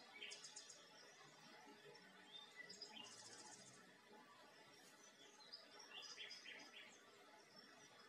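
Faint birdsong: bursts of short, high chirps and trills near the start, about three seconds in and about six seconds in, over a soft steady hiss.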